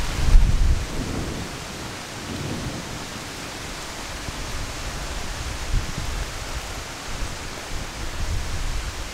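Steady pouring rain, an even hiss, with deep rumbles in the first second and again near the end.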